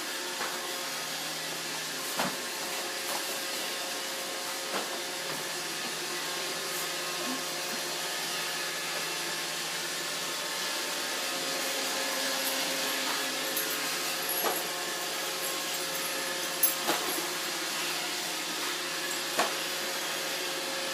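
Roomba robot vacuum running with a steady hum and whir, with a few short sharp knocks, the loudest about two-thirds of the way through.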